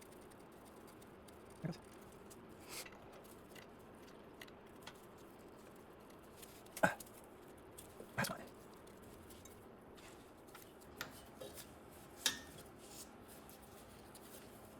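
Faint, sparse clicks and clinks of hand tools on metal as the last valve cover fasteners of a Lotus 907 engine are worked loose; the sharpest clicks come about seven and eight seconds in.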